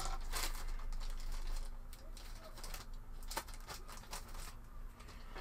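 Thin laser-cut MDF pieces clicking and rustling against each other and the table as a hand sets down a loose pile of them. About two seconds in the clatter thins out to a few light taps.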